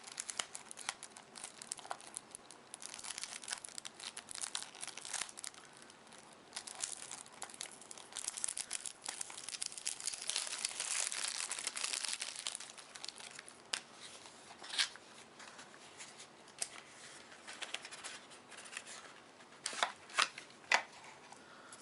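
A card-deck package being torn open and its wrapping crinkled by hand: steady rustling and tearing, busiest about halfway through, with a few sharp snaps near the end.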